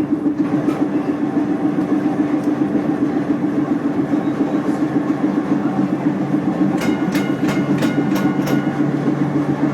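A streetcar running along its rails, with a steady motor hum and a constant rattle of wheels and car body. Near the end comes a quick run of about six ringing metallic strikes.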